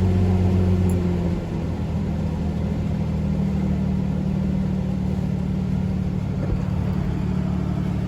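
2003 Ford Ranger's engine idling just after starting. Its idle drops and settles about a second and a half in, then runs steady and even, the bad misfire cured by new spark plugs, coil and plug wires.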